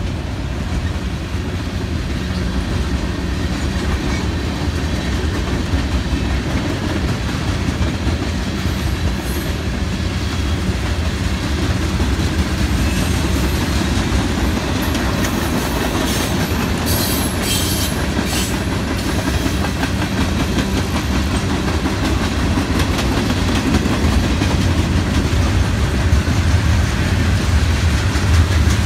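Freight cars rolling past: a steady rumble and clickety-clack of steel wheels over the rail joints as autorack, tank and covered hopper cars go by. A few sharp, high metallic squeals come from the wheels just past halfway.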